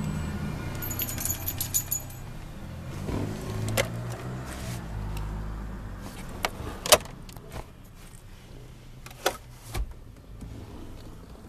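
Handling noises inside a 1994 Cadillac DeVille: a short metallic jingle like keys about a second in, then a series of separate sharp clicks and knocks as the glove box and dashboard ashtray are opened.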